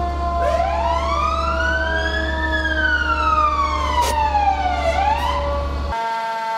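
Fire truck siren heard from inside the cab of a 1997 Sutphen tower ladder: a wail that rises for about two seconds, falls slowly, and starts to climb again about five seconds in, over a second steady siren tone sliding slowly lower. The truck's engine drones steadily underneath until it drops out about six seconds in.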